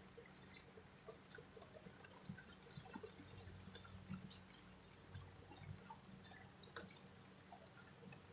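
Quiet rain: single drops falling and dripping at an irregular pace over a faint hiss.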